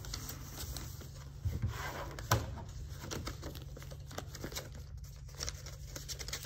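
A sheet of paper being folded and creased by hand, a run of crisp rustles with two sharper crackles about one and a half and two and a half seconds in.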